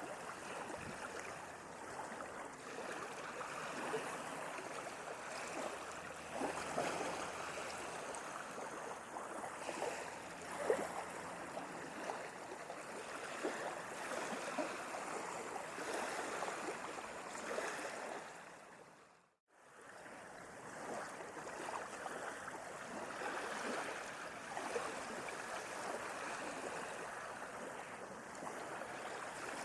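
Ocean waves washing, a steady rushing hiss with many small crackling splashes. About two-thirds of the way through, the sound dips briefly to silence and then comes back in.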